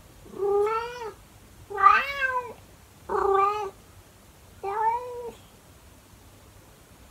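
A senior calico cat meowing loudly four times, each meow long and drawn out, with short pauses between.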